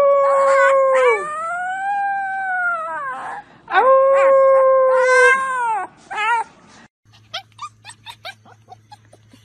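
Husky puppy howling: three long howls, the first and third held level and then falling away, the middle one rising and falling, followed by two short wavering yips. About seven seconds in, these give way to a faint run of short squeaky yips over a low hum.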